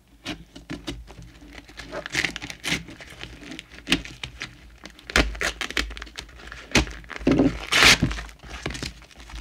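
Parcel packaging of plastic wrap and paper being slit with a utility knife and torn open by hand: irregular crinkling and ripping, loudest around seven to eight seconds in.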